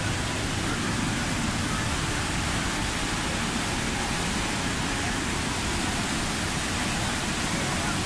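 The Rhine Falls, a large river waterfall, pouring at close range: a steady, even rushing of water that never lets up.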